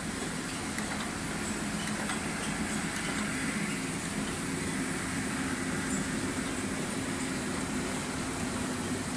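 Wen Chyuan FR108L film laminating machine running: a steady mechanical hum with faint clicks from its mechanism.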